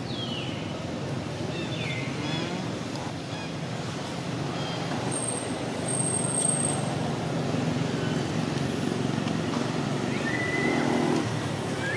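Steady outdoor background rumble, with a few short high-pitched chirps that fall in pitch near the start.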